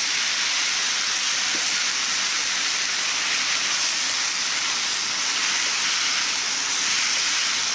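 Beef, mushrooms and glass noodles sizzling in a hot frying pan just after a sweet seasoning sauce has been poured over them: a steady, strong hiss as the sauce cooks in.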